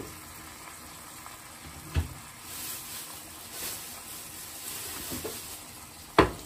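Cooking wine poured from a glass bottle into a hot pot of fried chicken wings, splashing and sizzling softly in the middle of the pour, with a couple of light knocks. Near the end comes a sharp clack as the glass bottle is set down on the counter.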